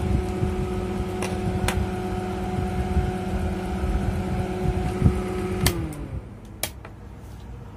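Small AC fan motor, the test load on the compressor 1 output of a repaired Dixell XR460C controller, running with a steady hum: the sign that the new relay now passes mains power to the load. A little under six seconds in a sharp click comes as the power is pulled, and the hum slides down in pitch and fades as the motor winds down; another click follows about a second later.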